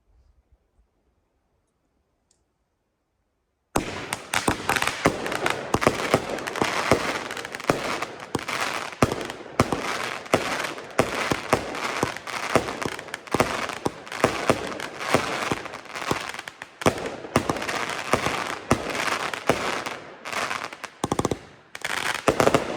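A World Class "Dead Diva" multi-shot firework cake firing: after a few seconds of quiet it starts suddenly about four seconds in, with a dense, rapid string of launches, cracks and bursting breaks that keeps going without a pause.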